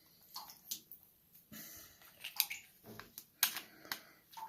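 Faint handling of a flashlight being opened and loaded: several short clicks and scrapes as the tail cap is unscrewed and the rechargeable battery slid into the metal body.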